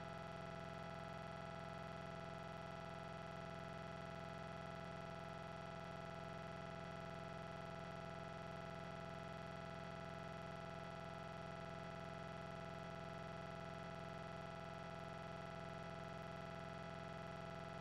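Faint, perfectly steady electrical hum made of many even tones, with nothing else happening.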